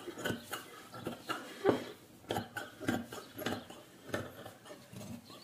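Large metal tailor's scissors cutting through folded layers of kurti cloth along the shoulder line: a run of short crisp snips, about two a second, the blades clicking as they close.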